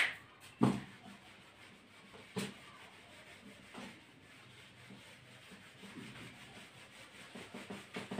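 Whiteboard eraser rubbing back and forth across a whiteboard, a faint repeated scrubbing. A couple of soft knocks come in the first few seconds.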